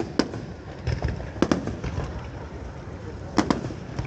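Fireworks shells bursting with sharp bangs: one right at the start, a quick pair about one and a half seconds in, and another pair near three and a half seconds, over a steady low rumble.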